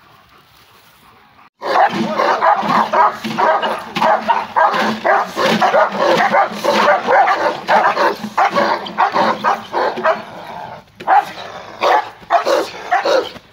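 German Shepherd dogs barking hard and fast, agitated as they strain on their leashes toward a helper with a bite pad in protection training. The barking starts abruptly about a second and a half in, runs almost without a break, and breaks into separate barks near the end.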